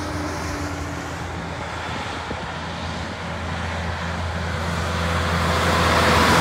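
Kenworth prime mover approaching along a motorway. Its diesel engine runs with a steady low note while tyre and road noise grow louder toward the end as it nears.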